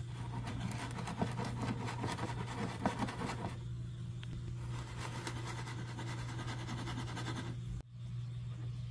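Light clicking and crackling as a glass measuring cup of liquid plastisol is handled and swirled, dying away after about three and a half seconds, over a steady low hum.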